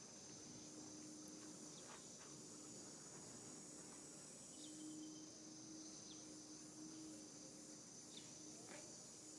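Quiet outdoor ambience: a steady, faint, high-pitched drone of insects, with a faint low hum coming and going.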